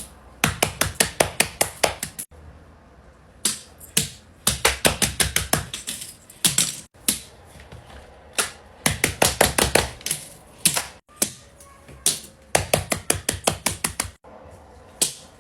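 Rapid sharp clicks and taps in runs of several a second, broken by short pauses and abrupt cuts, from small handmade fidget toys being clicked and tapped by hand.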